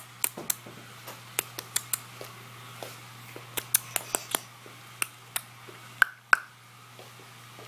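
Tongue clicking: about twenty sharp mouth clicks and pops at an uneven pace, a few with a short hollow ring.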